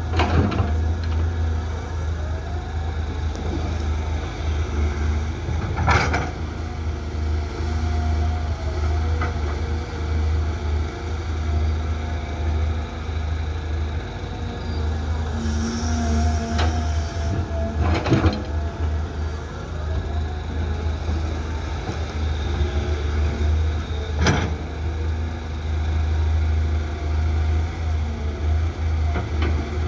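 Caterpillar 320 hydraulic excavator digging and loading, its diesel engine running steadily under load. Four sharp knocks come several seconds apart.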